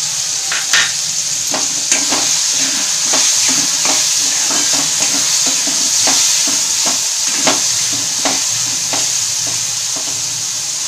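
Onion, tomato and green chilli frying in oil in a metal kadhai, sizzling steadily, while a metal spatula stirs in red chilli powder and onion-garlic masala, scraping and tapping against the pan at irregular intervals.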